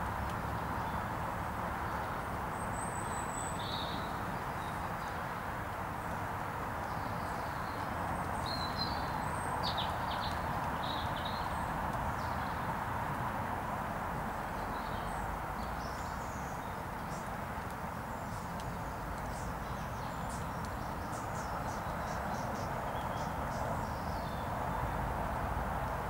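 Small birds giving short, high chirps scattered throughout, over a steady low rumble and hiss of outdoor background noise.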